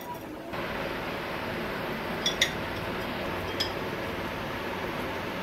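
Steel kitchenware clinking on the counter as a lemon drink is made: two short metallic clinks close together a little past two seconds in and a fainter one later, over a steady background hiss.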